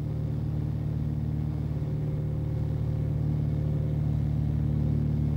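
A steady, low mechanical drone that holds one pitch throughout, like an engine or machinery running at an even speed.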